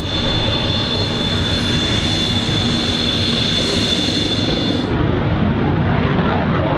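Yakovlev Yak-130 jet trainer's twin turbofans whining high and steady as it taxis, over a broad engine rush. About five seconds in the whine drops away, leaving a broad jet rumble as the aircraft takes off.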